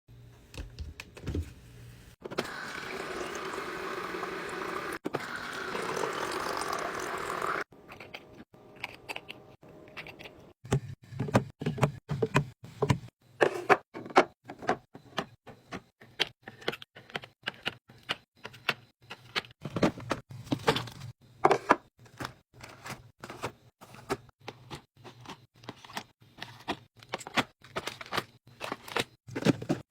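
Items being put into a mini fridge: a dense run of short clicks, clacks and knocks, the sound of cans, bottles and packets set down and slid into place. Earlier, a steady rushing noise lasts about five seconds and stops abruptly.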